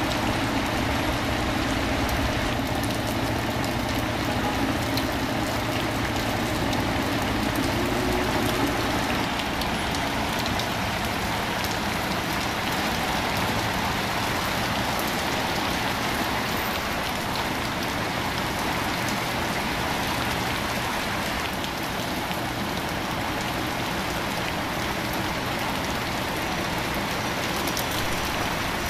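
Steady rain falling on a wet city street and pavement, an even hiss of drops. The low hum of vehicle engines in traffic runs under it and fades out about ten seconds in.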